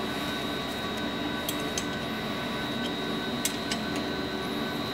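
A few light metallic clicks of a wrench on the bolts of a focused ion beam microscope's ion source flange, over a steady hum of lab equipment.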